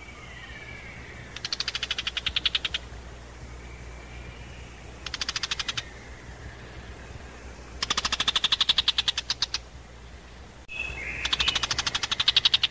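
Tiger shrike giving harsh rattling alarm chatter in four bursts, about a dozen notes a second, the call of a small bird mobbing a perched Eurasian eagle-owl. Faint thin whistled notes from other birds come between the bursts.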